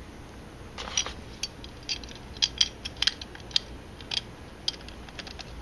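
Irregular light metallic clicks and ticks of an Allen key turning shiny Allen bolts into a chrome air cleaner cover, the key and bolt head knocking against the metal as the bolt is fastened. The clicks start about a second in and come in uneven clusters.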